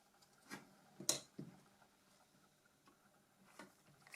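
A few faint clicks and taps of small hard objects handled and set down on a work surface: four in all, the loudest a little over a second in.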